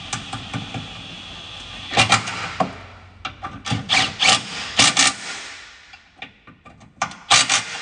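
Cordless ratchet running in the center carrier bearing bolts on a driveshaft, with a steady motor whine for about the first two seconds. After that comes a series of sharp, irregular metallic clacks as the bolts seat and the tool and socket work against them.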